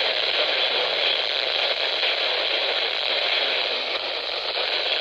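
Steady static hiss from a NOAA Weather Radio receiver, with no voice on the channel.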